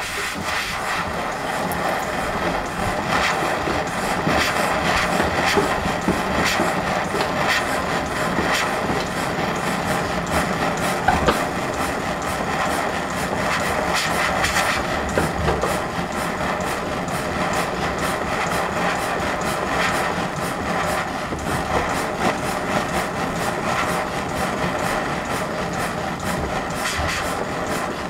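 Jeweller's gas torch burning steadily with a dense rushing hiss and light crackling as it melts a small piece of gold.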